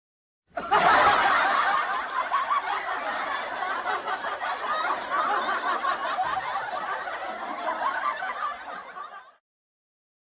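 Laughter sound effect: many people laughing together. It starts abruptly about half a second in and dies away shortly before the end.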